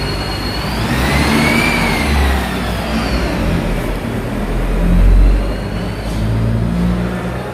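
A motor running loud over a low rumble, its whine rising and falling in pitch; it cuts off abruptly at the end.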